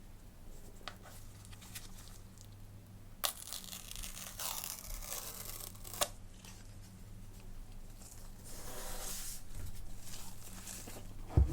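Packaging of an iPhone 15 Pro Max box being torn open and handled: two sharp clicks, bouts of tearing and rustling, and a heavier thump near the end.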